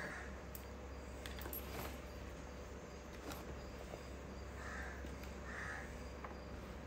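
Wooden spatula stirring chunky mango pickle in a plastic bucket, with a few faint clicks and scrapes. Two short bird calls about five seconds in.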